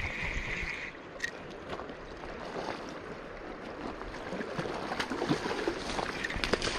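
A fly reel's clicker buzzing for about the first second as a hooked steelhead is played, over the steady rush of a river. Near the end the fish splashes at the surface.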